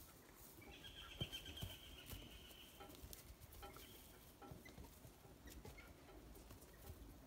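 Near silence outdoors: a faint, thin high-pitched whistling tone lasts about two seconds from about a second in, with scattered soft taps and faint chirps.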